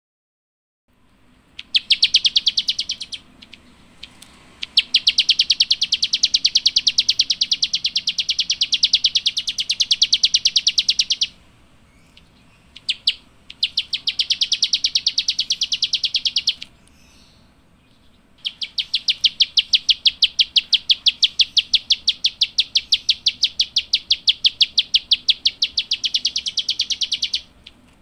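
Plain prinia (Indonesian 'klik-klik', ciblek sawah) calling in long runs of rapid, evenly repeated sharp clicking notes, four runs with short pauses between, the longest about nine seconds near the end.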